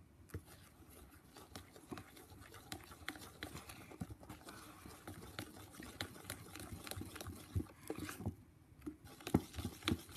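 A spoon stirring thick slime in a plastic bowl: irregular wet clicks and scrapes, pausing briefly a little after eight seconds in, then a few louder clicks near the end.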